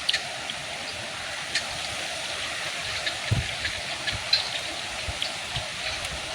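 Steady rush of water with many small drips and splashes scattered through it, and a soft low thump about three seconds in.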